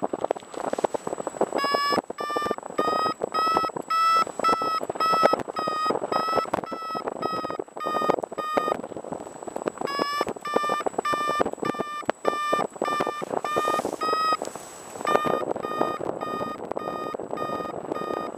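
Paragliding variometer beeping in runs of about two beeps a second, its pitch rising and falling a little; steady beeping like this signals that the glider is climbing in lift. Wind rushes over the microphone underneath.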